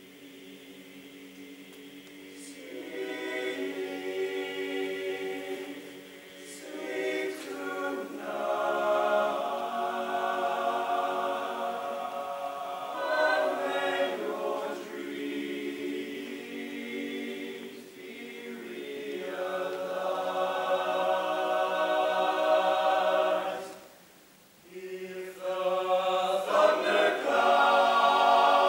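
Unaccompanied male choir of about seventeen teenage voices singing in parts. The phrases swell and fade, with a brief near-silent break about two-thirds of the way through, then a loud re-entry.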